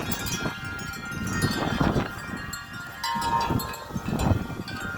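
Several wind chimes ringing continuously in strong gusty wind, many overlapping tones, with wind rumbling on the microphone in irregular gusts.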